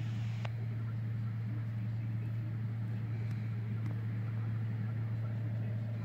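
Combine harvester running steadily while cutting soybeans, a constant low drone, with one faint click about half a second in.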